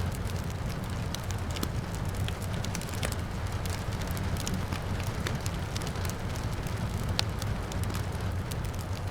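Wood fire crackling: many sharp irregular pops and snaps over a steady low rumble and hiss, with soft rain behind it. One pop about seven seconds in is louder than the rest.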